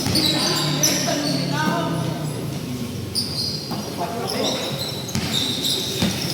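Sounds of a basketball game: the ball bouncing on the court, with short high squeaks of shoes on the floor and voices of players and onlookers.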